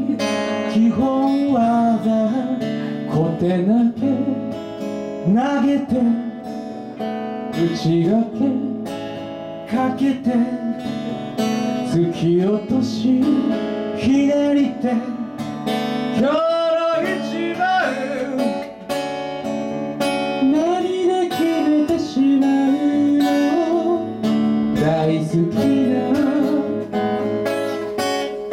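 Two acoustic guitars strummed together live, with a man singing a melody over them.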